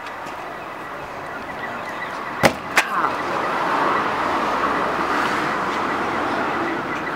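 Two sharp clicks in quick succession, then a car driving past on the street, its noise swelling and easing off again near the end.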